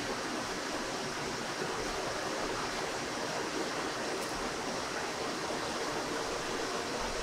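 Steady rushing background noise of a commercial kitchen.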